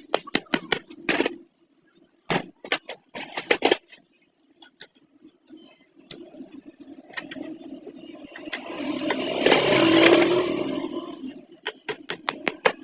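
Irregular small metallic clicks and taps in short clusters, with a passing motor vehicle that swells and fades about eight to eleven seconds in.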